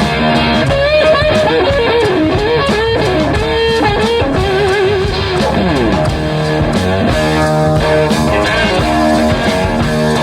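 Rock music with electric guitar: a lead line bends and wavers in pitch over the band for the first six seconds or so, ending in a downward slide, then the band carries on with a steady chordal pattern.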